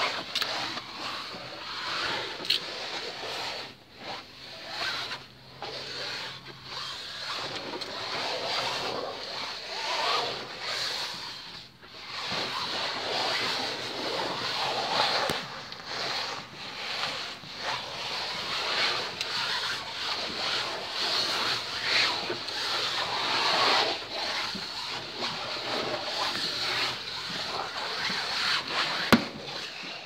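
Continuous rustling and rubbing noise from a handheld phone's microphone brushing against clothing during a climb down a staircase, with a few sharp knocks.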